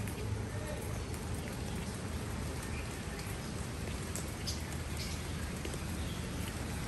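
Steady rain falling on leaves and ground, with a few sharper drop ticks.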